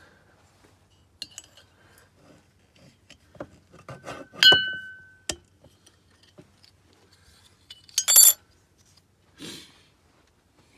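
Hard metal objects knocking and clinking as they are handled, with one piece ringing clearly about four and a half seconds in and another bright clink about eight seconds in.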